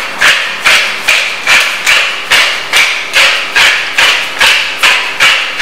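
Hand-twisted pepper mill grinding peppercorns in a steady rhythm, a gritty crunch about two and a half times a second.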